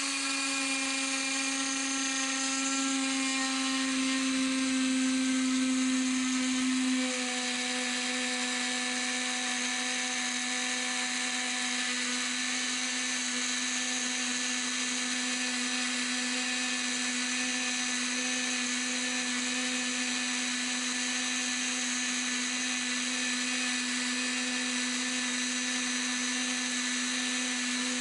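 Dremel rotary tool running at about 15,000 RPM with a 1/8" 60° V-bit, thread milling mild steel: a steady high whine over a hiss. About seven seconds in the tone drops slightly and gets a little quieter.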